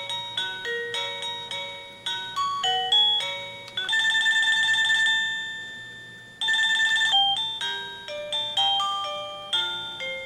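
EVERSECU plug-in doorbell chime playing one of its selectable ringtones: a tune of clean electronic beeping notes, broken twice in the middle by a fast trilling ring.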